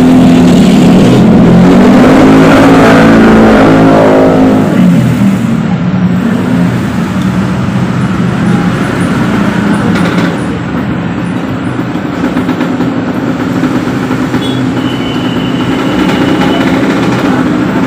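Engine of a motor vehicle passing close by, loudest in the first four seconds, then giving way to steady traffic noise.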